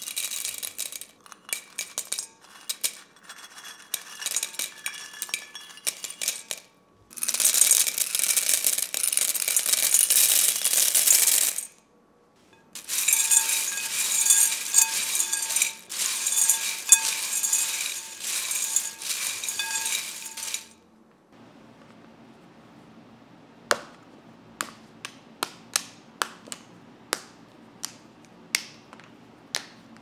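Dry cereal and mini pretzels rattling and clinking against a glass bowl as they are poured in and stirred with a spatula, a dense crunchy rattle in long stretches. About 21 seconds in this gives way to separate sharp snaps as white chocolate bars are broken into pieces.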